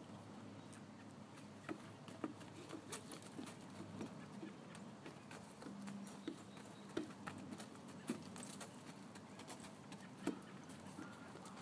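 Scattered soft crunches and taps of footsteps on wood-chip mulch, with the occasional thud of a small rubber ball being kicked into the air.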